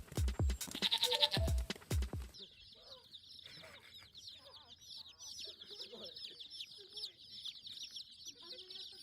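Music with a heavy beat and an animal bleat for about two seconds, cut off abruptly, then chickens: a dense, unbroken run of many high peeps with a few lower clucks.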